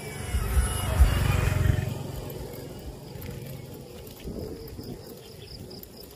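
Birds and insects chirping, with a rapid run of high chirps, about five a second, in the last two seconds. A loud low rumble fills the first two seconds.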